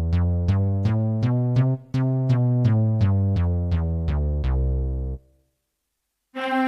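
Yamaha PSS-F30 mini keyboard playing a bass voice: a quick run of short plucked low notes, about four a second, stepping up and down the scale, stopping about five seconds in. Near the end a sustained string voice begins.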